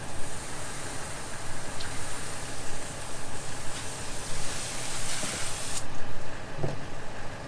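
Garden hose spray nozzle spraying water in a steady hiss that cuts off suddenly about six seconds in.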